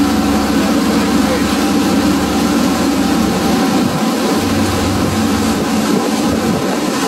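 Steady drone of a fishing boat's engine running, with a constant low hum under a noisy wash.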